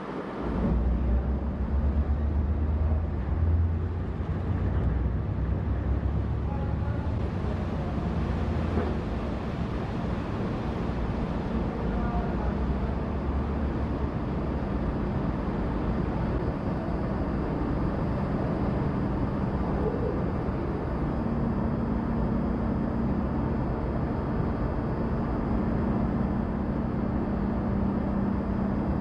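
Low, steady drone of ship engines from a large car carrier moving close by, strongest in the first several seconds, with a second steady hum coming up about two-thirds of the way in.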